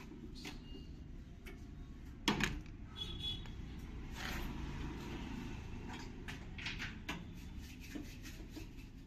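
Metal parts and hand tools being handled during a washing machine repair: scattered knocks and clicks, one loud knock about two seconds in, a brief metallic ring, and a stretch of scraping.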